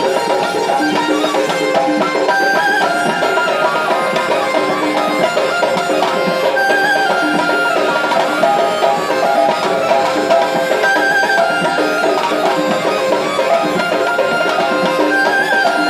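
Tunisian folk music: hand drums keep a steady rhythm under a sustained melody on a wind instrument, loud and continuous.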